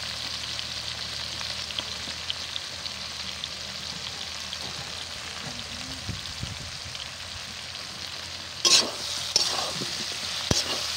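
Freshly added sliced onions frying in hot oil in a metal pan: a steady sizzle with light crackling. Near the end a metal spatula scrapes and knocks against the pan as the onions are stirred.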